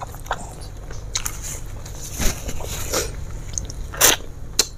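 A person eating fried chicken by hand close to the microphone: wet chewing and crunching. There are louder crunches a little past two seconds and about four seconds in.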